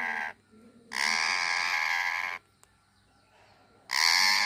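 Indian ringneck parakeet repeating a long, harsh, rapidly pulsing call, each about a second and a half long. One call ends just after the start, another follows about a second in, and a third begins near the end.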